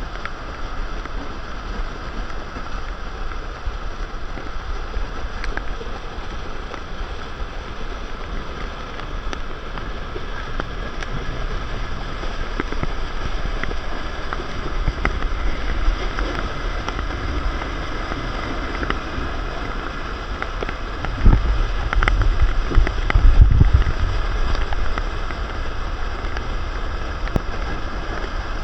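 Floodwater rushing steadily, with wind buffeting the microphone into loud low rumbles about three quarters of the way through.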